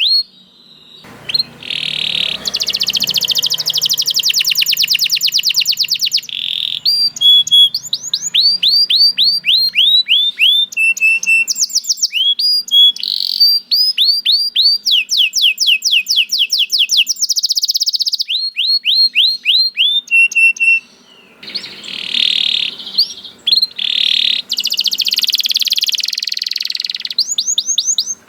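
Domestic canary singing a long, continuous song of fast trills: runs of rapidly repeated rising notes and rolls, each phrase changing every second or two, with brief pauses about a second in and again near the two-thirds mark.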